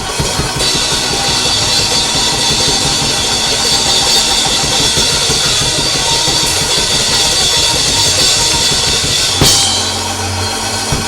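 Live church band playing loud, driving music with drum kit, bass drum and cymbals; a cymbal crash about nine and a half seconds in.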